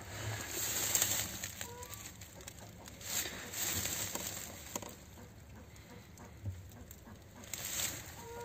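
Spruce branches rustling and crackling in irregular bursts as goats pull at and chew the twigs and needles, with a couple of short faint animal calls.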